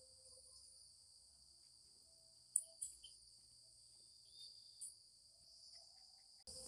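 Near silence with a faint, steady high-pitched chirring in the background. There are two sharp clicks a little over two and a half seconds in, and a short burst of noise right at the end.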